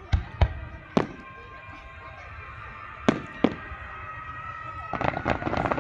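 Aerial fireworks bursting: five sharp bangs in the first three and a half seconds, then a dense run of crackling near the end.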